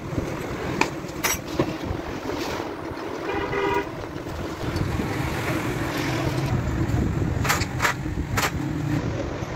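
A horn toots once, briefly, about three seconds in, over a steady low rumble broken by a few sharp clicks.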